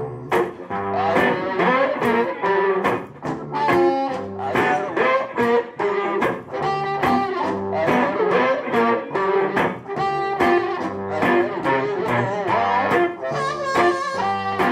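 Live one-man-band blues played on electric slide guitar, with bending notes over a steady stomped beat at about two beats a second. The passage is instrumental, with no singing.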